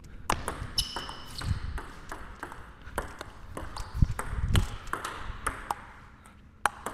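A table tennis ball clicking back and forth between rackets and table in a steady rally: forehand topspins played with a Nittaku Genextion rubber, returned with blocks. A few dull low thumps fall among the clicks.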